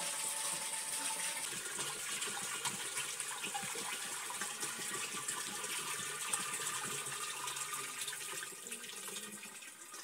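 Water poured from a plastic jerrycan through a cloth sieve into a clay water pot: a steady splashing pour that tapers off near the end.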